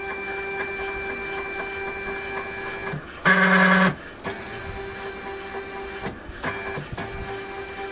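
Stepper motors of a DIY desktop CNC driving its table along steel rods, giving a steady multi-tone whine with several brief breaks. About three seconds in, a louder buzz lasts about half a second.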